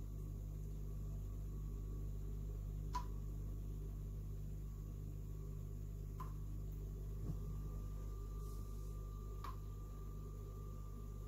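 Steady low hum of an indoor machine or appliance, with three short chirps about three seconds apart.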